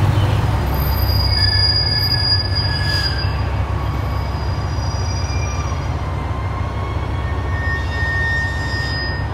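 Tosa Kuroshio Railway 9640-series diesel railcar running in along the platform to stop at its terminus: a steady low rumble, with thin, high brake and wheel squeals coming and going.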